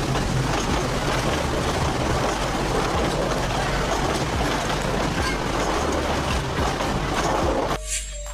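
Narrow-gauge Durango & Silverton passenger coaches rolling past close by, a steady rumble of wheels on the rails. The sound cuts off suddenly near the end.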